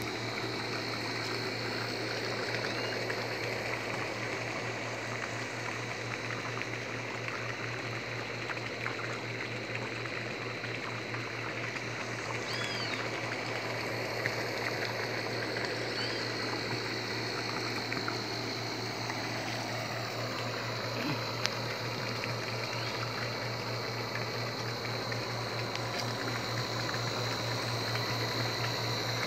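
Water pouring steadily from a pipe outlet into a fish pond, over the constant low hum of an electric air compressor running to aerate the pond.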